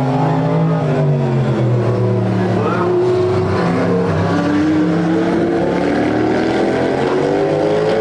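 Several race car engines running at once, their pitch sliding down through the middle and then climbing again toward the end.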